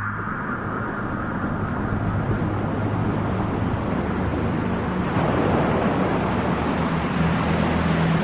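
Steady rushing white noise from a sound-masking machine, filling in fuller and lower about five seconds in, over low sustained tones of background music.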